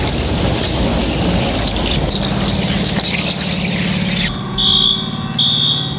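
Industrial vacuum press running as a floor panel is loaded: a loud hiss with a steady machine hum joining about two seconds in. The hiss cuts off and a high warning beeper starts, beeping twice near the end.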